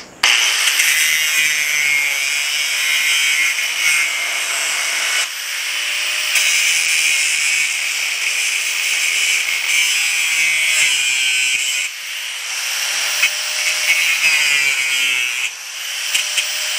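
Angle grinder with a cutoff wheel slicing through the protruding ends of steel bolts, starting up suddenly and then running loud and high-pitched. Its pitch sags and recovers several times as the wheel bites into each bolt.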